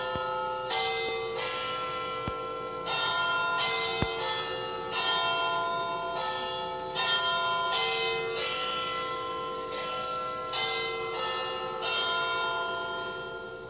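Grandfather clock striking ten o'clock on its chime rods, each stroke a ringing bell-like tone struck about every one and a half to two seconds, with the ringing fading away near the end.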